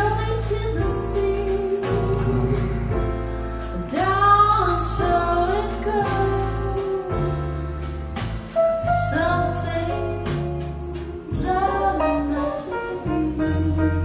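A song with a singing voice over steady bass notes, played from CD through Boston Acoustics M350 tower speakers and heard in the room.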